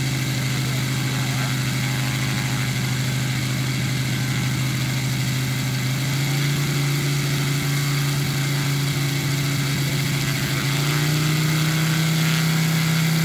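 NGH GF 150 model aircraft engine turning a 32x10 two-blade propeller, running steadily on the ground. Its speed steps up slightly about six seconds in and more clearly near the end.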